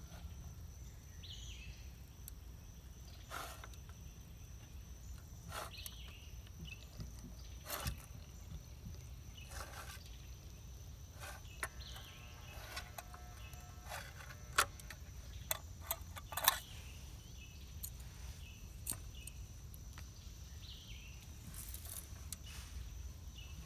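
Faint outdoor ambience with a steady high insect drone and a low rumble, broken by scattered light clicks and taps from an aluminum Do-it sinker mold being handled under a lead pot's pour spout. Near the end comes a short cluster of clicks as the mold is opened.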